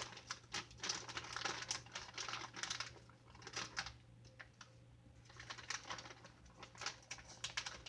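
Quick runs of light clicks and taps from small hard kitchen objects being handled. They come in two spells with a quieter pause between, over a steady low hum.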